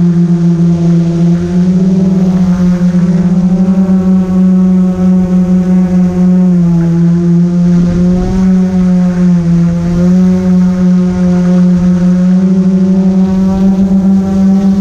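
Multirotor drone's motors and propellers humming loudly close to the camera, a steady buzzing tone whose pitch dips and rises a few times as the drone manoeuvres.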